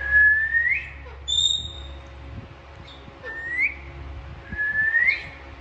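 Alexandrine parakeet whistling: three short upward-sliding whistles, with a higher, flat whistled note in between, over a steady low hum.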